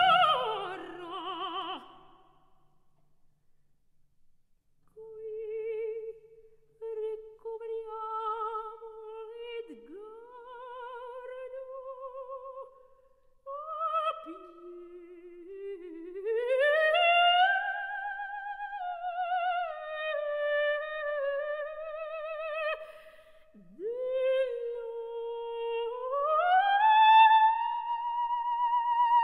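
Operatic soprano voice singing alone, a slow line with wide vibrato that climbs in steps to a long held high note near the end. Orchestral sound fades out at the start and is followed by a short pause before the voice enters.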